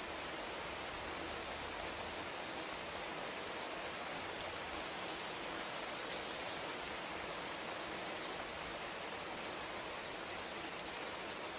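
Steady rain falling, an even hiss of drops with no change in strength.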